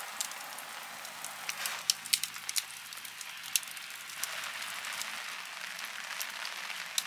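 Steady rain falling, with many single drops ticking sharply close by.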